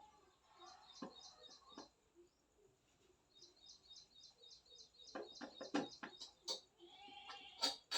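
Faint bird chirping in a quick, even series of about five chirps a second, broken by a short pause. Several sharp clicks and knocks come about five to six and a half seconds in, and another near the end.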